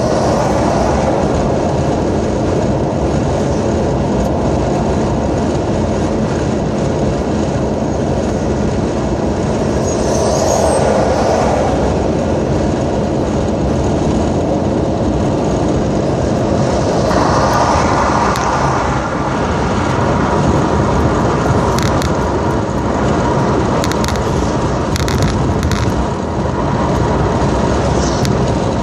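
Steady road and engine noise heard inside a car's cabin driving at highway speed, swelling briefly twice.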